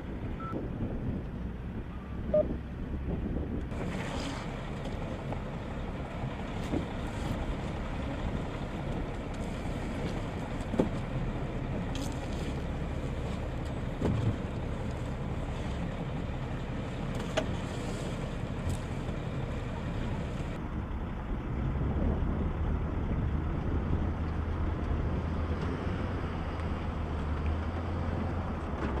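Steady engine noise mixed with wind, with a few sharp clicks; a deeper hum comes in and grows louder about three-quarters of the way through.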